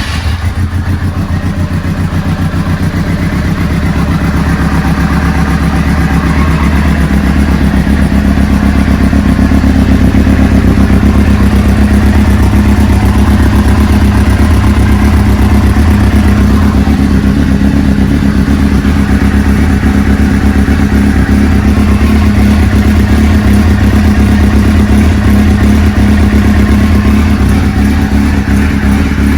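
1998 Suzuki GSX-R 600 SRAD inline-four engine running steadily just after a cold start, loud and even throughout. The exhaust gasket at the silencer joint is leaking, puffing air out of the side of the joint: an air leak that upsets the fuel mixture.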